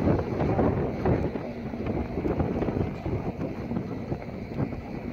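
Wind buffeting the microphone: an irregular, gusting rumble.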